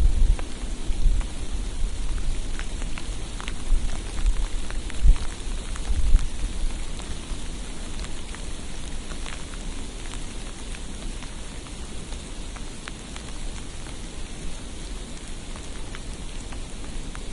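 Steady hiss of snowfall street ambience, with scattered light patters of falling precipitation on surfaces. Low rumbling surges come through in the first six seconds, then it settles to an even hiss.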